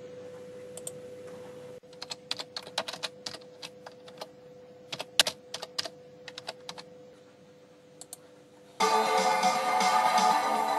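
Computer keyboard keys clicking in an uneven run of taps as a search is typed, over a faint steady hum. Nearly nine seconds in, a music track cuts in, louder than the typing.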